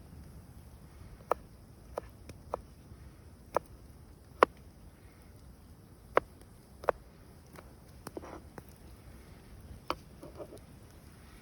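Knife chopping on a cutting board: about a dozen separate knocks at an uneven pace, the loudest about four and a half seconds in.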